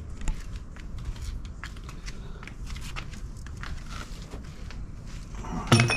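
Hands handling a ribbed plastic vent hose and the plastic back panel of a composting toilet, making scattered light clicks and crackles, with a louder clatter of knocks just before the end.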